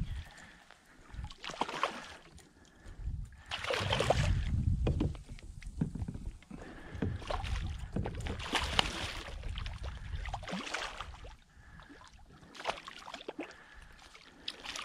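Water splashing and churning in irregular bursts as a hooked redfish thrashes in the shallows beside a kayak.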